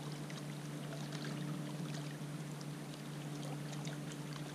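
Small waves lapping and trickling among the rocks at the water's edge, with faint scattered ticks and a steady low hum underneath.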